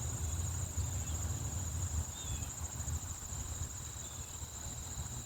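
Steady high-pitched chorus of insects in the surrounding vegetation, over an uneven low rumble of wind or movement on the microphone.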